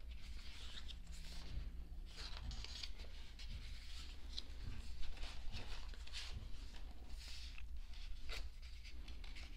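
Pages of an album photo book being turned and handled: irregular paper rustles and soft flicks, the loudest about halfway through.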